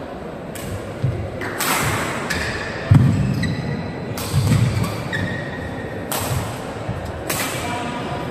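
Badminton rally in an indoor hall: a shuttlecock struck sharply by rackets about five times, one to two and a half seconds apart, with heavy thuds of players' feet landing on the court in between.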